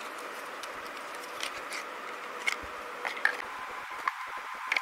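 Several light rustles and short clicks as a hand rummages in shredded paper box filler and picks up a boxed lipstick, over a steady hiss.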